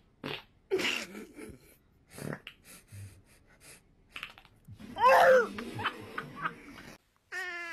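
Shar-Pei puppy breathing in short wheezy snorts, then giving one loud, wavering howl about five seconds in.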